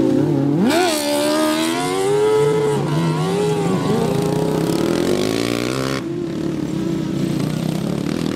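Racing ride-on lawn mowers' engines running hard as they pass. Several engines sound at once, and one rises sharply in pitch about a second in as it revs up out of the corner.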